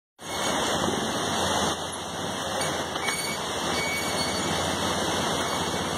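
ATV engine running steadily under a continuous rushing noise.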